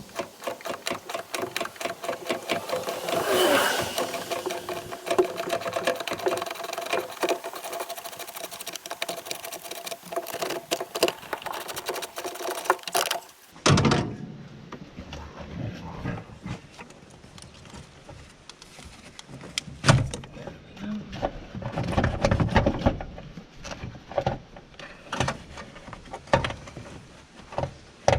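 Socket ratchet with an extension clicking rapidly and steadily on a fastener deep in a Toyota 4Runner's engine bay. Partway through it gives way to scattered metallic clanks and knocks of tools being handled.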